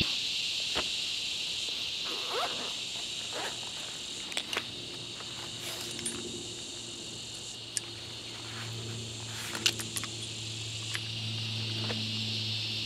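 Steady insect chorus in the bush, with scattered clicks and rustles of small gear being handled and taken out of a fabric organiser pouch.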